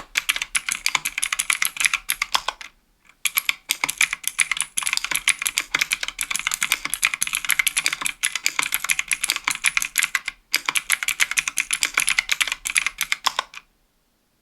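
Fast typing on a 60% aluminium-case keyboard with Kailh Pro Light Green clicky switches, aluminium plate and GMK keycaps: a rapid run of sharp clicky keystrokes. It breaks off briefly about three seconds in, and the typing stops shortly before the end.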